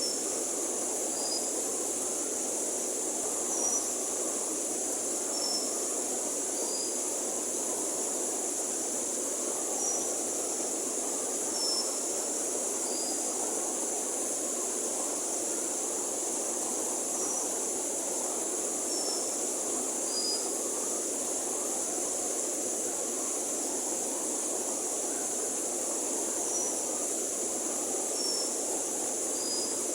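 River water rushing steadily, over a constant high hiss, with short high chirps, mostly in pairs, every couple of seconds.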